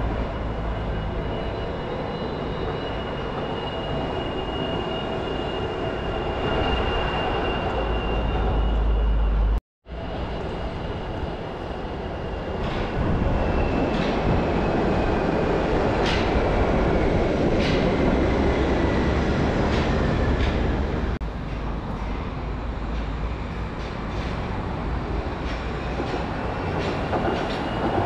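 Wuppertal Schwebebahn suspension railway train running: a steady rumble with a thin high whine over it. It cuts out briefly about ten seconds in, then comes back louder with several sharp clicks and a whine that slowly falls in pitch.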